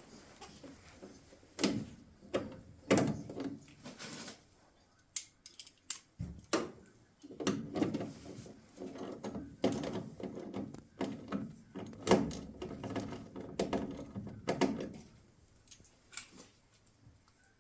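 Irregular clanks, clicks and knocks of metal parts and hand tools being handled while a new furnace inducer blower is fitted, busiest in the middle and thinning out near the end.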